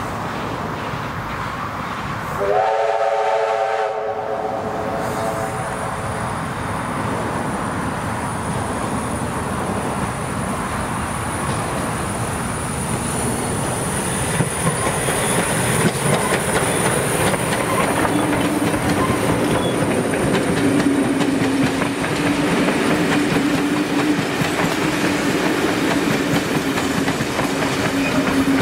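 NSW C36 class steam locomotive 3642 sounds one whistle blast of about a second and a half, a couple of seconds in, while still out of sight. It then runs past hauling its carriages: a steady rising noise from the approaching train, ending in the clickety-clack of carriage wheels over the rail joints as the carriages pass.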